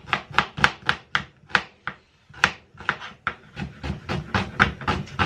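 Knife chopping onion, sharp even strokes about four a second with a brief pause about two seconds in.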